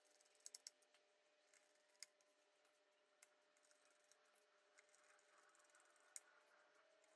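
Near silence with a few faint, sharp clicks and taps of small screws and parts being handled as a graphics card is put back together: three quick clicks about half a second in, then single ones spread through the rest.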